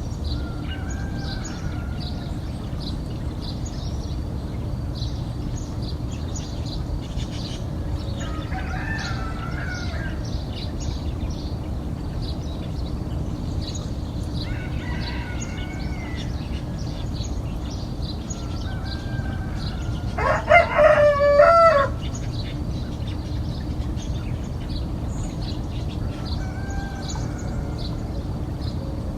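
Roosters crowing at daybreak: several distant roosters call in turn, and one close rooster crows loudly about two-thirds of the way through. Small songbirds chirp constantly over a steady low rumble.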